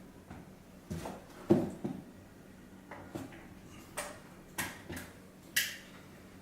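A series of irregular sharp clicks and knocks, about ten of them, from wiring harness connectors and plugs being handled and clicked together while 12-volt power is hooked up to a car head unit. The loudest knock comes about a second and a half in.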